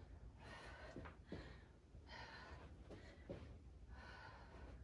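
Faint, heavy breathing of a woman working through fast lateral lunges, one breath about every second.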